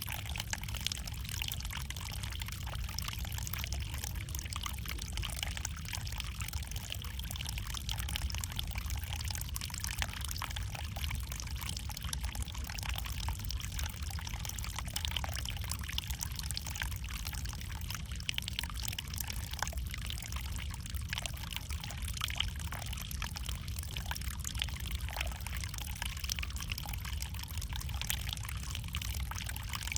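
Flowing water: a steady, even rush with a constant patter of small splashes and trickles.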